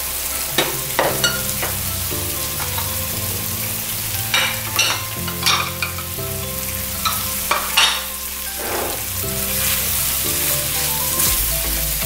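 Corned beef, onion and green chilli sizzling in a frying pan as they are stir-fried, with several short clinks and scrapes scattered through it.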